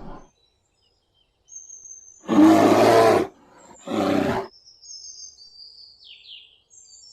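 Bear roaring twice, a long roar and then a shorter one about a second later, with small birds chirping faintly between and after the roars.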